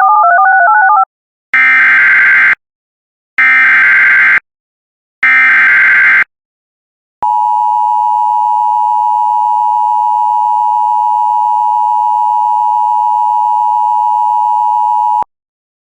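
Emergency Alert System tones: a brief two-note warble, then the three one-second bursts of the SAME digital header's screechy data tones about a second apart, then the steady EAS attention signal held for about eight seconds and cut off suddenly.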